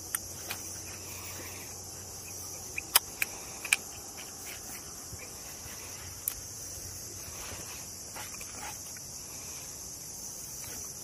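Steady high-pitched chirring of insects, with a few sharp clicks and taps, the loudest of them about three to four seconds in.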